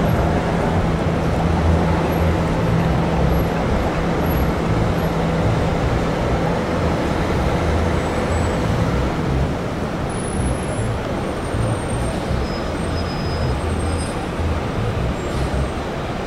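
Bombardier Flexity streetcar standing close by, its onboard equipment giving a low steady hum that fades out about halfway through, over steady street traffic noise.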